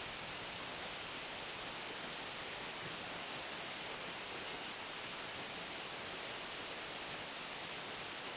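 Steady rain falling, an even hiss with no individual drops standing out.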